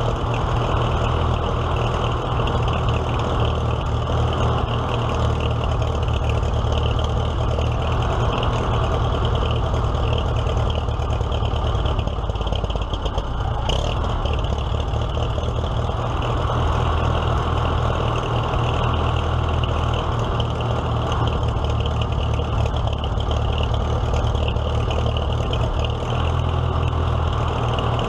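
Antique farm tractor's engine running steadily at an even idle, with no revving.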